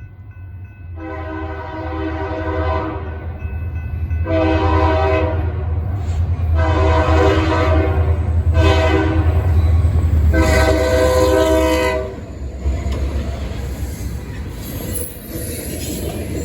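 Freight locomotive air horn sounding five chord blasts (long, long, long, short, long), the last four forming the long-long-short-long grade-crossing signal. Under the horn the diesel engine rumbles heavily as the locomotive passes, then the rumble eases and the cars roll by.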